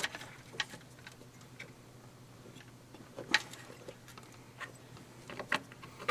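Scattered light plastic clicks and taps from handling an HID headlight wiring harness and its connectors, with the strongest click about three seconds in and a quick pair near the end.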